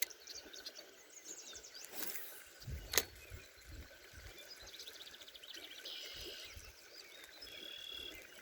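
Songbirds singing faintly, with a series of high trills and a held whistle in the second half, over low outdoor ambience. A single sharp click sounds about three seconds in.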